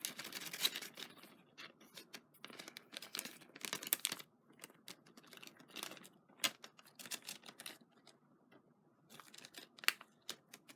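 Crinkling and rustling of a small bag being handled while small paper die cuts are pulled out of it, in scattered clusters of crackles with short pauses.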